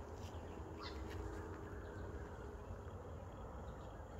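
A flying insect buzzing faintly for about two seconds over a low outdoor rumble, with a few brief high chirps near the start.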